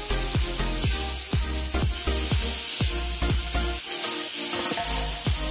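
Background music with a steady beat, a little over two beats a second.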